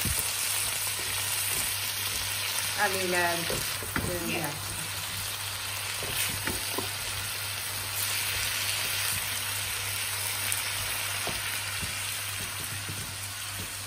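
Onions and red peppers sizzling steadily in a hot wok on high heat. They are stirred with a silicone spatula, which knocks and scrapes against the pan now and then.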